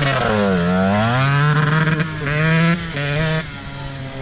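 Husqvarna TC125's 125 cc two-stroke single-cylinder engine revving as the dirt bike rides off, its pitch dipping about half a second in and climbing back, then holding high with a few short drops in level.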